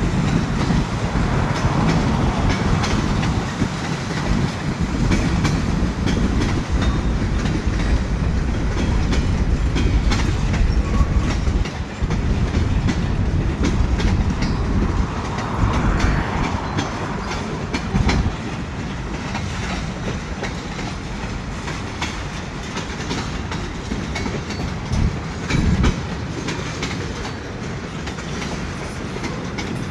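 Canadian National freight train's cars rolling past: a steady rumble with the wheels clicking over rail joints.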